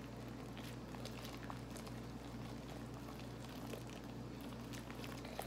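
Faint, irregular wet squishing and crackling of fluffy glue-and-shaving-cream slime being kneaded by hand; the slime is still sticky and not fully set. A steady low hum runs underneath.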